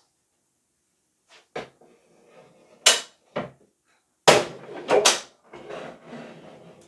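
Knocks and clunks of a heavy PC case with tinted glass panels bumping against its wall-mount bracket as it is lined up and hooked on. The knocks are sharp and irregular, the loudest about three and four seconds in, with some shuffling and scraping after.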